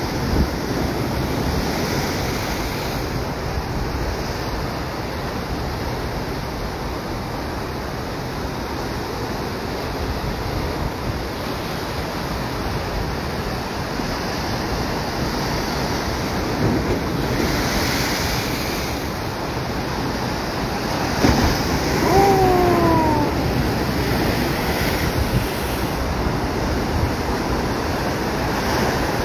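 Ocean waves surging and breaking over a sandstone rock shelf, a continuous wash that swells as bigger sets hit, with wind buffeting the microphone. A brief call falling in pitch sounds about two-thirds of the way through.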